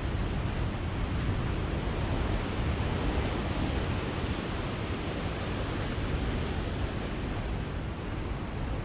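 Ocean surf washing in as a steady, unbroken roar, with wind rumbling on the microphone.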